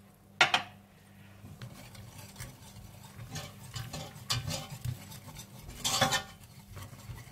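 A spoon scraping and stirring flour around a cooking pot as it is roasted in the pan juices for a brown sauce. There is a sharp knock about half a second in and a louder bout of scraping around six seconds in.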